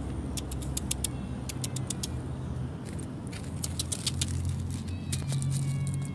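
Bursts of quick, sharp kissing clicks, made by a person calling a frightened cat, over a low, steady engine hum.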